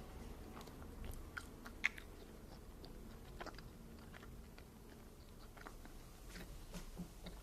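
Faint chewing of a chewy candy, with soft scattered mouth clicks and smacks, one a little sharper about two seconds in.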